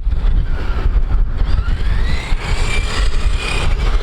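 Electric RC car motor whining, rising in pitch as it speeds up and then holding high before dropping away near the end, over a low rumble of wind on the microphone.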